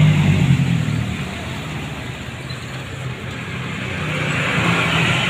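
A small pickup truck's engine passing close by, its hum fading over about the first second as it pulls away over the rough, broken road. Traffic noise from approaching motorcycles and tyres rises again near the end.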